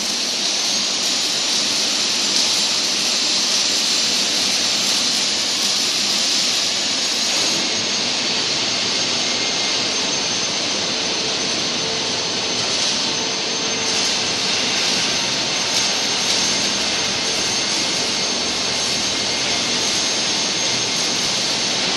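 A steady, loud rushing hiss of air or gas, with a faint high whistle running above it that drops slightly in pitch about seven seconds in.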